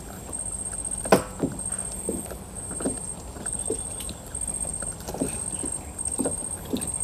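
Water lapping and slapping against the hull of a small boat, a string of irregular knocks with one sharper knock about a second in, over a high, pulsing whine.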